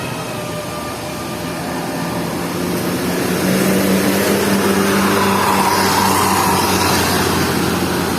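Bus driving past with its engine running steadily, growing louder about three seconds in and easing off slightly near the end.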